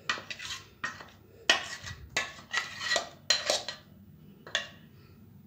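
Blue plastic spatula scraping ground rice batter out of a mixer jar into a stainless steel bowl: an irregular run of about a dozen sharp knocks and scrapes on metal.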